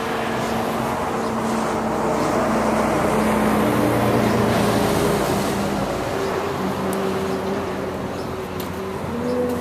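An engine running, its pitch stepping down and then back up, the sound swelling to its loudest about halfway through.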